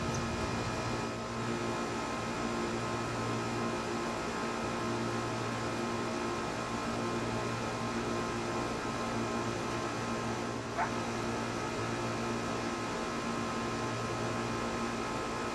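A steady hum with hiss, and one short high-pitched sound about eleven seconds in.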